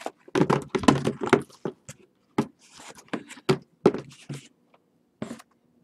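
Trading-card hobby boxes being stacked on a table: a quick run of knocks and scrapes as they are set down and shuffled together, then single knocks every half second or so.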